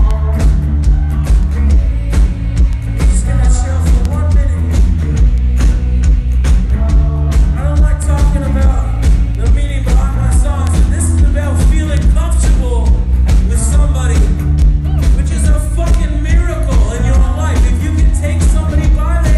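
Rock band playing live, with a lead singer over loud bass, guitars and a steady drum beat.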